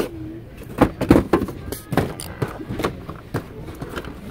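Blister-packed and boxed toys being handled and pushed aside on store pegboard hooks: a quick run of plastic clacks, crinkles and knocks, loudest about a second in.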